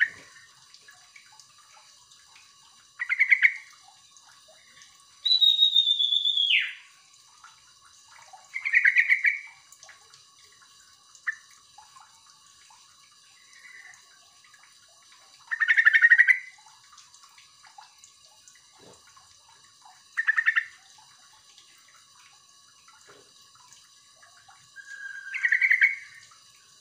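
Yellow-vented bulbul calling: short, chirpy phrases repeated every few seconds, with one longer, higher call that falls away about six seconds in and a rising call near the end.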